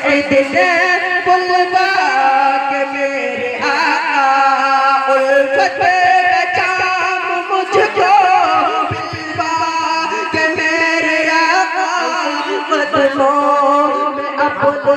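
A man sings a naat, an Urdu devotional poem, unaccompanied into a microphone, holding long melismatic notes that waver in pitch.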